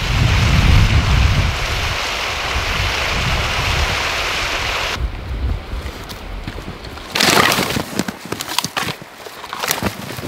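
Wind buffeting the microphone over a steady outdoor rush for about five seconds. It then cuts away to quieter crunching and rustling as spruce branches are carried through snow, with one brief loud rustle and a few scattered knocks near the end.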